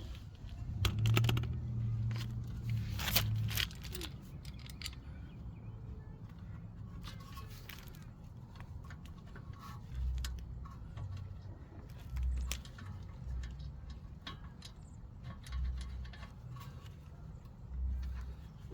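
Light metallic clicks, taps and scrapes of hand work on a car's rear brake caliper and its greased slide pins, with a few sharper knocks near the start and dull low thumps in the second half.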